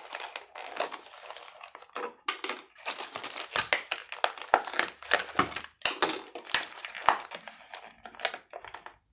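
Packaging being handled while a model is unpacked: irregular crinkling and rustling with many small clicks.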